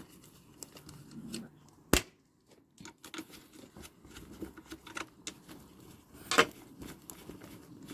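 Small metallic clicks and rattles of a screwdriver working Torx screws out of a van's rear door lock mechanism. There is one sharp click about two seconds in and another about six and a half seconds in.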